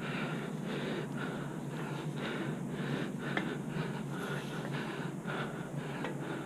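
A man breathing hard, in a quick steady rhythm of breaths, from the exertion of climbing a steep ladder in the heat.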